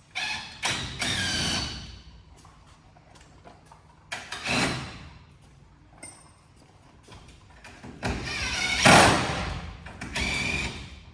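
Cordless drill-driver running in four short bursts, its motor whine rising and falling as it drives the M5 bolts that fix the greenhouse door hinges.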